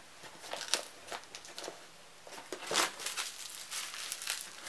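Packaging being handled: light rustling and crinkling of paper and plastic, with a dozen or so scattered small clicks and taps.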